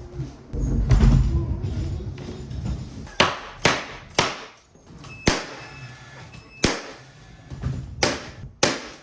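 A series of sharp knocks, seven of them at irregular spacing, each with a short ringing tail, after a low rumble in the first couple of seconds.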